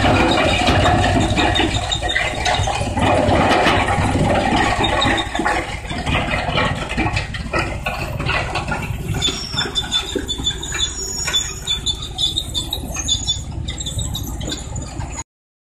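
Electric-motor-driven drum wood chipper running while chipping branches: a steady machine noise full of irregular cracking and knocking as the wood is cut, with brief high squeals in the second half. It cuts off suddenly just before the end.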